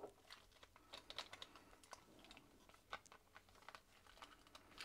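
Faint, irregular clicks and taps of the hard plastic parts of a Transformers figure (Rescue Pioneer JH01L, a Masterpiece Ratchet repaint) as its joints and panels are moved and fitted together by hand.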